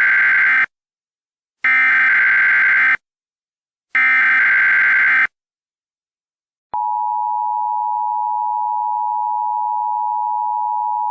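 Emergency Alert System (EAS) SAME header: three bursts of screeching digital data tones, about a second apart, the first already under way. After a short pause, the steady two-tone EAS attention signal starts about seven seconds in, marking the start of an emergency alert broadcast.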